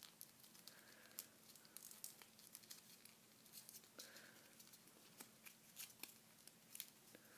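Faint crinkling and crackling of a small folded paper model being creased and shaped between the fingers, in scattered small clicks.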